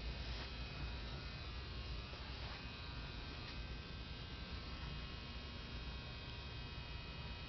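Steady electrical hum with a faint high whine, the running noise of water-treatment equipment such as pumps.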